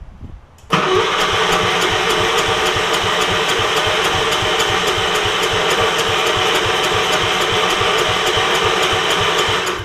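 Electric starter cranking the Gravely 5665's Kohler engine with an even, rhythmic beat for about nine seconds, then stopping without the engine catching. It won't fire because the new fuel pump's lines are hooked up backwards, sending fuel back to the tank instead of to the carburetor.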